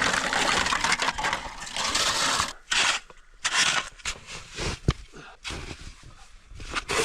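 Shovel digging and scraping through snow in strong, gusting wind. There is a continuous rush for the first couple of seconds, then separate scrapes and gusts.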